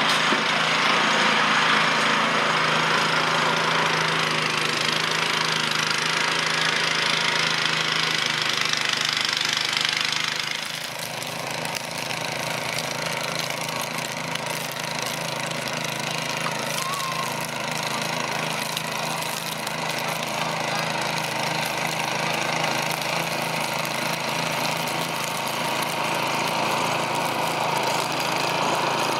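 An engine running steadily. A loud hiss rides over it for the first ten seconds or so, then drops away, leaving the engine running more quietly.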